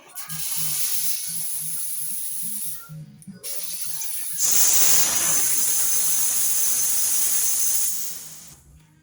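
Steam wand of a two-group commercial espresso machine venting steam: a hiss for about three seconds, a short break, then a louder hiss from about four seconds in that tails off near the end.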